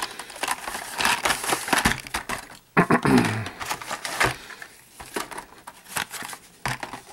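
Hot Wheels blister cards being handled and shuffled: plastic blisters and cardboard backing cards rustling, crinkling and clicking against each other in irregular bursts.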